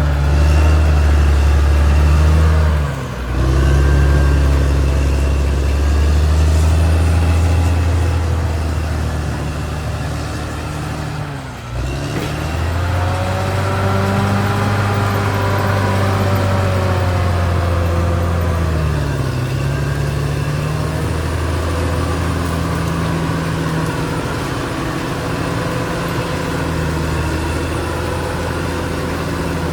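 Caterpillar D6R XL bulldozer's diesel engine running steadily as it works, its pitch rising and falling once in the middle as the load changes. The sound drops out briefly twice.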